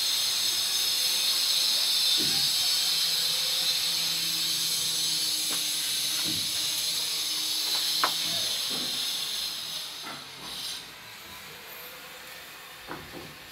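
A loud, steady high-pitched hiss that fades out about ten seconds in, with a few light knocks underneath.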